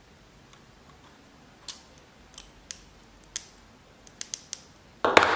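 Small, sharp clicks of hard 3D-printed resin parts knocking together as printed screws and nuts are fitted into a model's joints by hand. The clicks come one at a time, a few in quick succession near the end, then a louder brief clatter just before the end.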